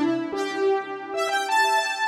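Cherry Audio Chroma software synthesizer, an emulation of the Rhodes Chroma, playing a synth-brass preset. It sounds a short phrase of sustained notes and chords, with a new note entering about every half second, each starting bright and then mellowing.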